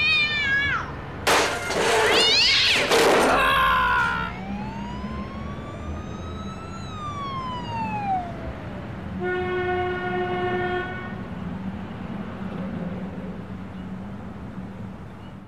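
Cartoon sound effects: a short wavering squeaky vocalisation, a loud noisy burst of sound, then one long glide that rises slowly and falls away, followed by a steady held tone of about two seconds, all over a low hum.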